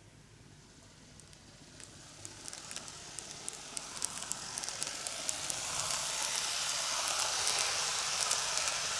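N-gauge model train (Greenmax Keio 1000 series) running toward the microphone on model track. Its rushing running noise grows steadily louder, with sharp clicks of the wheels over the rail joints coming thicker as it nears.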